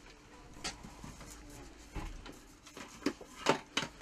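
Handling noise of cameras on a shop shelf: a few light knocks and clicks, then a quick cluster of sharper knocks about three and a half seconds in, the loudest of them.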